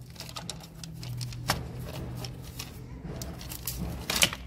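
Timing belt cover of a Ford Fiesta TDCi diesel engine being worked loose and pulled off by hand: a run of small clicks and rattles, with a sharp knock about a second and a half in and another near the end. A low steady hum runs underneath.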